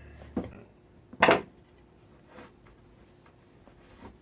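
Handling knocks as a wheelbarrow tire is worked off its metal rim: a short knock, then a loud sharp knock about a second in, and a few faint taps after.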